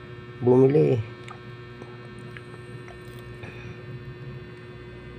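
Steady low electrical hum, with a few faint clicks of metal coins being handled.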